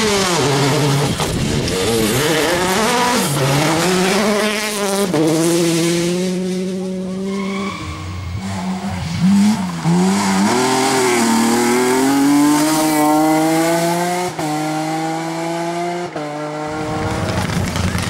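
Rally car engine revving hard, its pitch climbing and falling with throttle and gears, and two sharp upshifts near the end.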